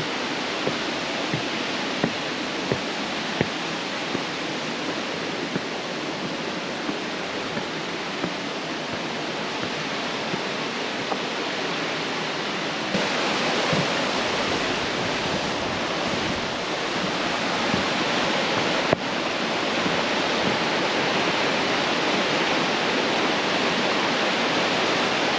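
Rushing water of a mountain stream or waterfall in a rocky ravine, a steady full rush that steps up louder about halfway through, with a few light ticks in the first few seconds.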